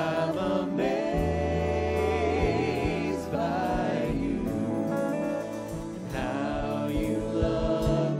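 Gospel worship song: several voices singing together into microphones, backed by a live band of guitars, keyboards and sustained low bass notes.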